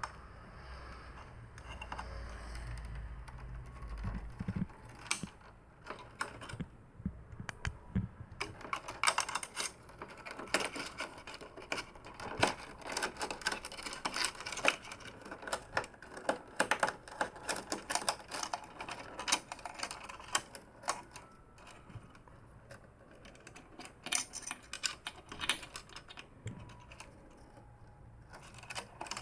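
Irregular small clicks and taps of plastic parts and ribbon cables being handled and fitted inside a Canon MF4450 printer. The clicks come thickest in the middle of the stretch, with a low hum under the first few seconds.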